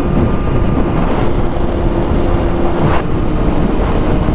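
Wind rushing over a helmet-mounted microphone at highway speed on a sport motorcycle, with the steady drone of the engine underneath.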